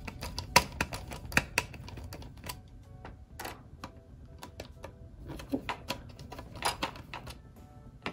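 Small screws being driven into a plastic model frame with a precision screwdriver: an irregular run of sharp clicks and taps from the screwdriver tip and the handled plastic parts, a few of them louder.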